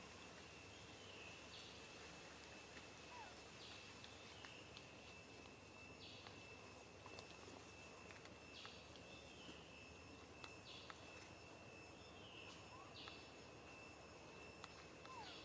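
Faint forest ambience: a steady, high-pitched insect drone, with a short chirping call repeated every second or two.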